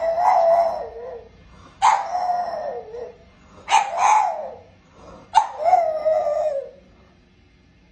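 French bulldog howling: four drawn-out howls, each about a second long and sliding down in pitch at the end.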